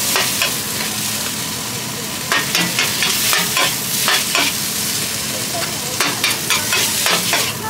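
Rice noodles frying with a steady sizzle in a large hot wok. A metal spatula scrapes and knocks against the pan in clusters as the noodles are tossed.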